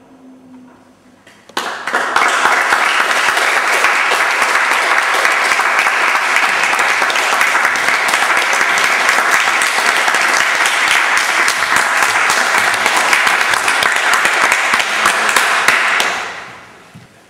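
Audience applauding: the clapping breaks out suddenly about a second and a half in, holds steady, and dies away near the end.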